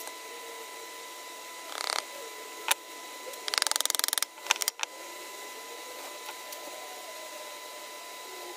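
Plywood caddy parts being handled on a wooden workbench: a short scrape, a sharp knock, then a quick rattle of clicks lasting about a second, and two more knocks.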